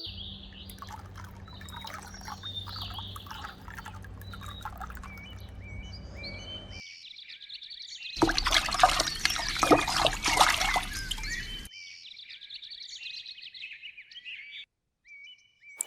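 Small birds chirping, with water pouring and splashing loudly for about three and a half seconds in the middle.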